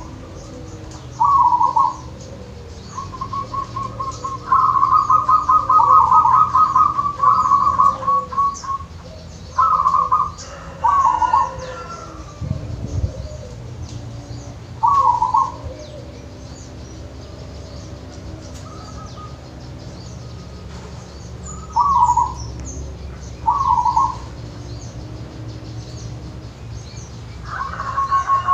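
Zebra dove (perkutut) cooing: short rippling coo phrases about every few seconds, with a longer run of rapid rolling notes about three to eight seconds in and another starting near the end.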